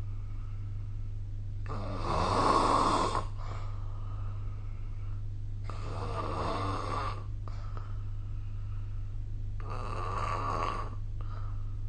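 A person snoring in their sleep: three snores about four seconds apart, each lasting about a second and a half, the first the loudest. A steady low hum runs underneath.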